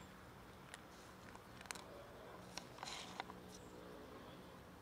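Quiet ambience with a few faint, sharp crunches: a kitten chewing dry cat kibble.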